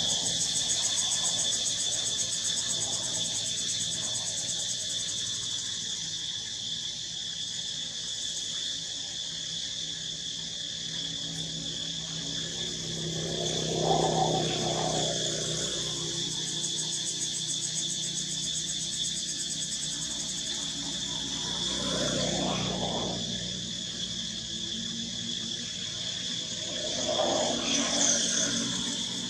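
Steady, high-pitched chorus of insects, a continuous shrill drone. A lower sound swells and fades three times: midway, later on, and near the end.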